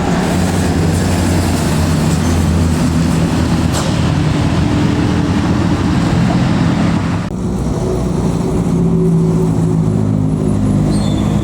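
Heavy diesel engine of a tour bus running under load at steady revs, with road noise. The hiss of road noise falls away about seven seconds in while the engine's drone carries on.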